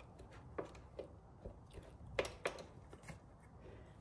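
A handful of light metal clicks and knocks, about seven, the two loudest a little past halfway, as a spring-loaded Pivot Pegz footpeg is pushed down and in against its spring into the footpeg bracket.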